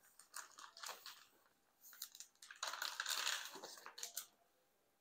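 Clear plastic air-column cushion packaging crinkling and crackling as a galvo head is pulled out of it, loudest from about two and a half to three and a half seconds in, then stopping.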